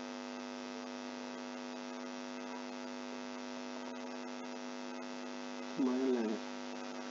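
Steady electrical mains hum with a buzzy stack of overtones, picked up by the recording. A short voiced murmur comes about six seconds in.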